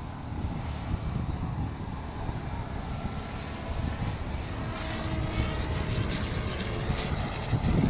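Radio-controlled aerobatic helicopter flying, a steady engine and rotor drone over a low rumble, its pitch shifting a little from about halfway through.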